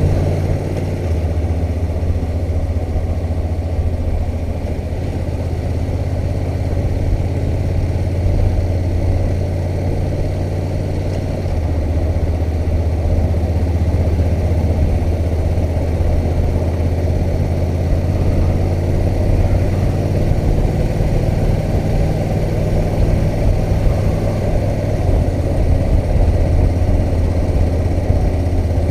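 Honda NC700X's parallel-twin engine running steadily under way, its low note stepping in pitch about a second in and again around twelve seconds in.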